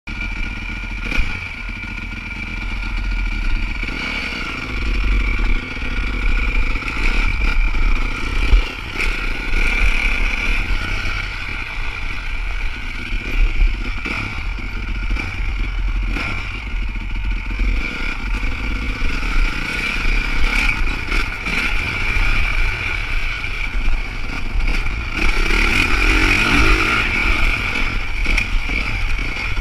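Honda CRF motocross bike's engine running at varying throttle as it is ridden along a dirt track, with a low wind rumble on the microphone.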